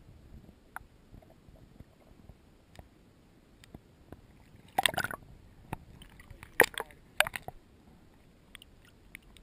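Water sloshing and gurgling heard through an underwater camera's housing, with faint scattered clicks and then three loud splashy bursts between about five and seven and a half seconds in, as a hooked barbel is drawn into a landing net.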